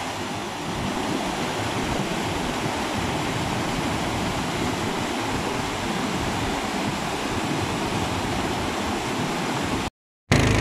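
Mountain torrent of glacial meltwater cascading over boulders: a steady rush of white water. It cuts off abruptly near the end.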